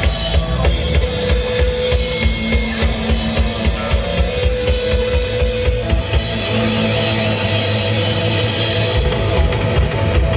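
Live rock band playing: a drum kit keeping a fast, driving beat under electric guitars and bass, with long held notes.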